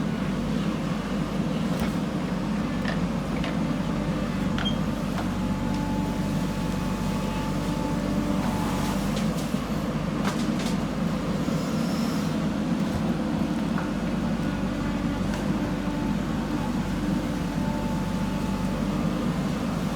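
JCB backhoe loader's diesel engine running steadily under work, with a few faint clanks scattered through it.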